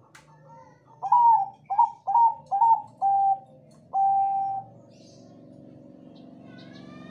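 Zebra dove (perkutut Bangkok) cooing: a run of five short, quick cooing notes, then one longer held note. A faint steady hum follows and cuts off suddenly near the end.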